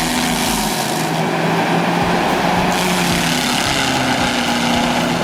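Heavy forestry machine running with its cutting attachment at work: a loud, steady mechanical din with engine tones that shift pitch now and then.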